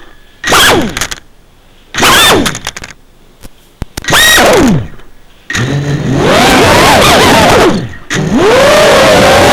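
Brushless motors of an FPV whoop drone spinning up in short bursts, each a whine that sweeps up and then falls away, about four times with quiet gaps between: crash-flip (turtle mode) attempts to turn the upturned quad over. Near the end the motors spin up again and hold a steady whine.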